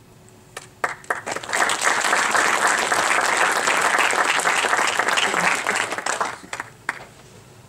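Audience applause: a few scattered claps that swell into steady clapping from the whole room, then die away with a last few claps near the end.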